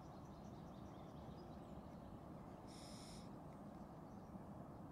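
Faint outdoor background with distant birds chirping over a steady low hiss, and one short high call lasting about half a second, about three seconds in.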